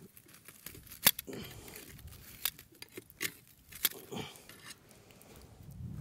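Metal tongs clicking and knocking against a wire grill grate and the burning wood as the fire is rearranged under it: about four sharp clicks with quieter scraping between.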